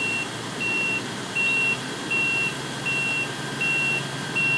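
A heavy truck's reversing alarm beeping steadily at one pitch, a little more than one beep a second, over the low, steady sound of a diesel engine running.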